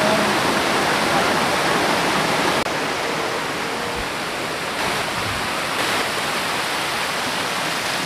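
Steady rush of a shallow mountain stream pouring over a low stepped stone weir, a small waterfall cascade, dipping slightly in level about two and a half seconds in.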